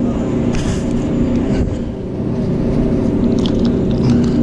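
A boat engine running steadily.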